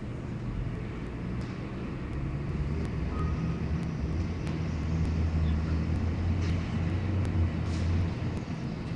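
Low rumble of road traffic, swelling from about two seconds in and falling away near the end, like a heavy vehicle passing.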